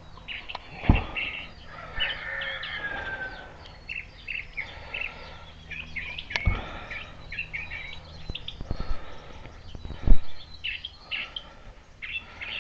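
Birds chirping throughout, with three sharp knocks from work on the hydraulic ram parts at about one, six and ten seconds in, the last the loudest.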